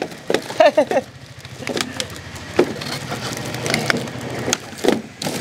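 Bundles of film-wrapped plastic bottles crackling and knocking against each other as they are pushed into place in a boat frame, with a low hum underneath that fades out after about four and a half seconds.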